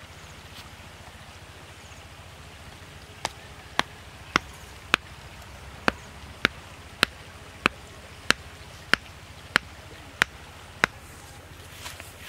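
A hand-held stone pounding a wooden stake into the ground: about thirteen sharp, even knocks a little over half a second apart, starting a few seconds in and stopping near the end.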